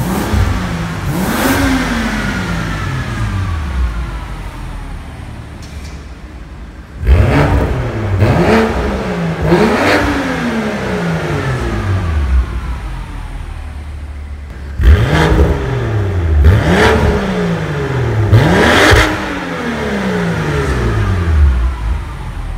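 BMW M2 F87's turbocharged straight-six, fitted with an EVOX Valvetronic cat-back exhaust with mid-pipe, idling and free-revving while parked: seven sharp revs, each climbing quickly and falling back slowly to idle, one alone and then two groups of three. The exhaust valves are closed at first, then open.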